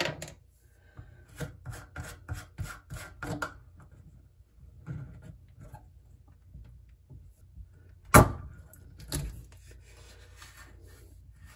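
Rapid clicking and scraping of a sink drain's locknut being unscrewed by hand from the old pop-up drain body under a bathroom basin, with a sharp knock about eight seconds in and a weaker one a second later.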